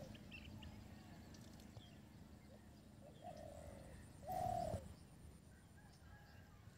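A bird calling with short, clear, steady-pitched notes: two calls about a second apart, a little over three seconds in, the second one louder. Faint low background noise runs under them.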